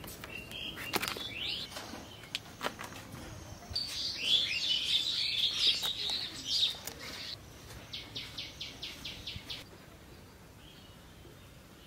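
Small birds chattering and chirping, a dense burst of high calls about four seconds in, followed by a quick even run of about eight short notes, roughly four a second; a few sharp clicks and taps come before.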